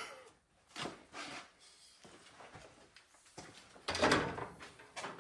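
A few brief clunks and scrapes of parts being handled in a pickup's engine bay: two short ones about a second in and a louder one about four seconds in.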